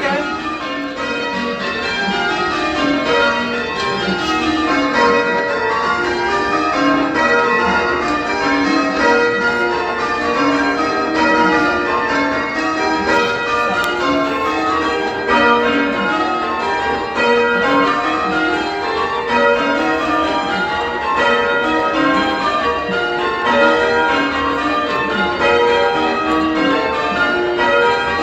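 Change ringing on a tower ring of church bells, mostly Whitechapel-cast with one old bell. The bells are bright and punchy, striking one after another in continuous rows, with the order shifting as the changes go.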